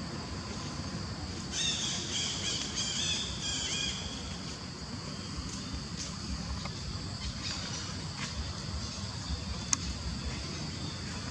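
Outdoor ambience with a steady high insect drone. About one and a half seconds in, a run of high, broken chirping or squealing calls lasts about two seconds, with a few fainter chirps later. A single sharp click sounds near the end.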